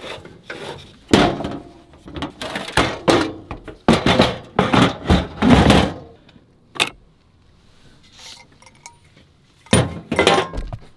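Camp cooking gear clattering and thunking as it is packed into a wooden drawer unit in a truck bed: items knocking against the wooden compartments in irregular clusters, a quieter spell, then another burst of knocks near the end.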